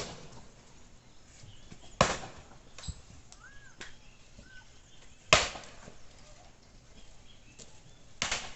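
Axe blows splitting firewood: a sharp chop every two to three seconds, the loudest about two and five seconds in, with a few lighter knocks between.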